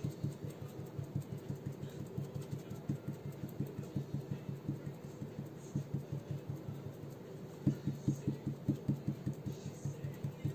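Round sponge dauber dabbing metallic chestnut paint onto a mirror-effect painted surface: a fast, even run of soft taps, about four a second, a few of them stronger about eight seconds in.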